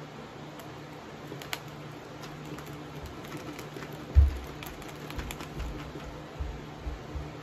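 Light clicks and crinkles of snack packets being handled, over a steady low room hum, with several dull low thumps, the loudest about four seconds in.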